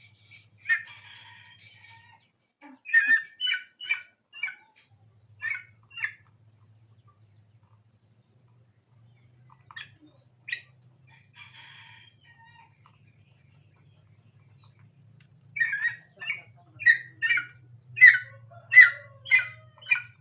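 Junglefowl giving short, sharp calls in a few bursts of about two a second, the longest and loudest run near the end.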